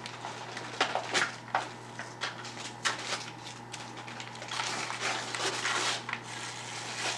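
Small package being handled and opened by hand: rustling and crinkling with several sharp clicks and taps, and a longer stretch of rustling about four and a half seconds in.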